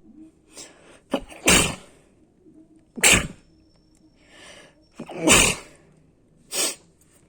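A fit of sneezing: four sneezes in quick succession, roughly one every one and a half seconds, the last one shorter and a little quieter, with softer breaths drawn in between.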